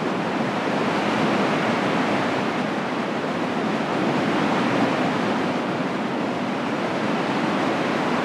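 Surf breaking on a sandy beach: a steady rush of waves.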